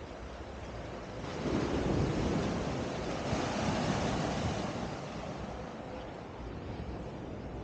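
Surf: a wave breaking and washing up the beach, swelling about a second in and easing off a few seconds later.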